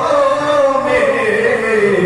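A man chanting a devotional Urdu kalam into a microphone: a single long melodic vocal line sliding down in pitch.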